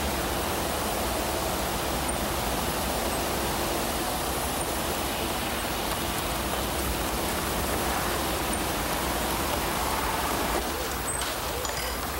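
Steady rushing background noise with no distinct events. It eases off slightly about ten and a half seconds in.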